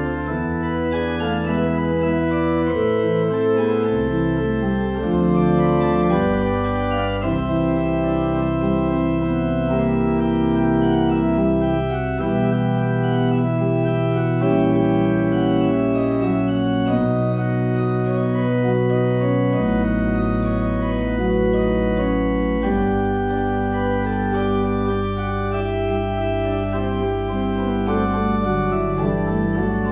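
Organ playing a slow prelude: held chords over long, deep bass notes that change every few seconds.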